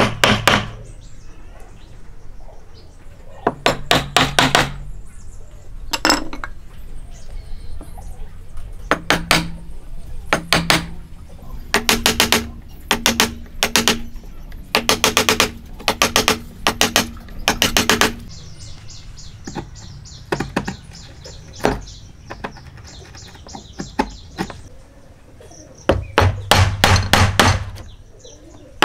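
A wide wood chisel being struck in quick bursts of blows, chopping out the waste between dovetails in a board: each burst is a run of sharp knocks, several a second, with pauses between bursts.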